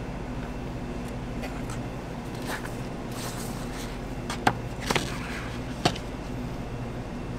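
Paper crepe sleeve rustling and crinkling as it is fitted around a rolled crepe, with a few sharp crackles in the second half, over a steady low machine hum.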